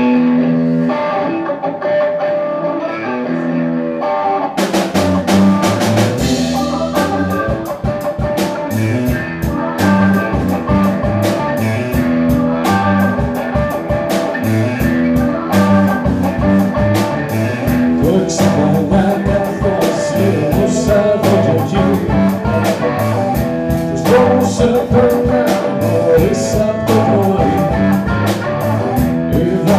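Live blues-rock band playing: a short intro without drums, then the drum kit comes in about four and a half seconds in and the full band plays on with electric guitar, bass and keyboard.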